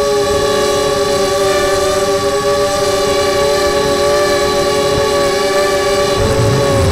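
Quadcopter's SunnySky 2204/2300KV brushless motors spinning HQ 5x3 props in flight: a loud, steady multi-pitched whine whose tones waver slightly as the throttle shifts.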